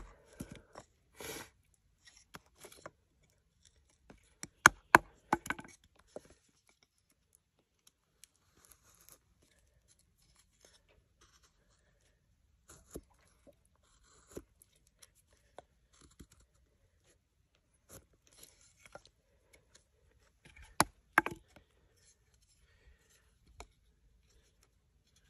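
Puukko knife carving a notch into a wooden stick: scattered sharp cuts and scraping strokes as the blade bites into the wood and pares off shavings, with quiet pauses between. The loudest cuts come about five seconds in and again about twenty-one seconds in.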